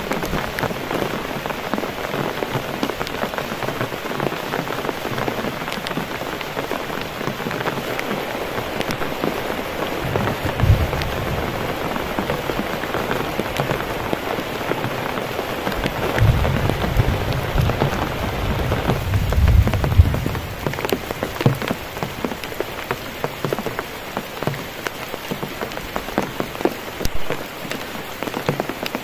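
Heavy rain falling steadily on a plastic tarp and the surrounding forest, with many close drop impacts. Low thunder rumbles about ten seconds in and again for several seconds past the middle.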